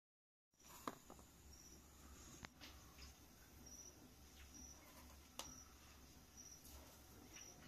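Near silence: faint room tone with a low hum, a faint high chirp repeating about once a second, and a few soft clicks.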